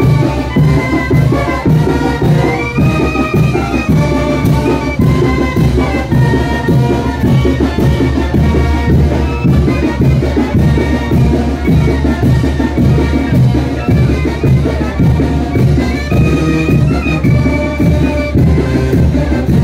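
Brass band music for a Chinelo brinco dance: a steady bouncing beat under a sustained melody.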